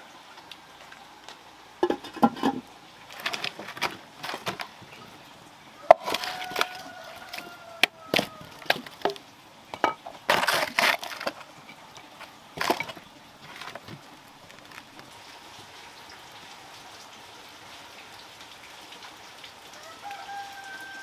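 Firewood being handled and laid onto an open cooking fire under an iron pot. A run of sharp wooden knocks and cracks, thickest about ten seconds in, then only a faint crackle from the fire.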